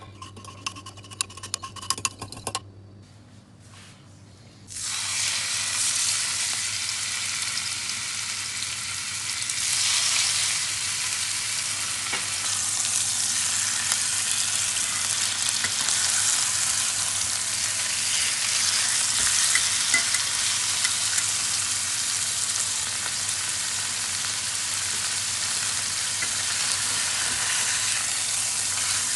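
A metal spoon clicking against a glass measuring cup as cream of mushroom soup and milk are stirred, then, about five seconds in, a steady sizzle as seasoned pork chops fry in a pan.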